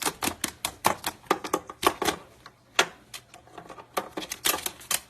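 A parrot's beak nibbling and clicking at a cord: quick, irregular sharp clicks, several a second.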